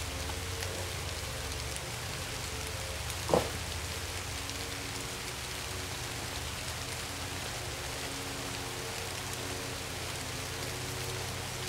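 Steady rain falling. One short thump about three and a half seconds in stands out above it.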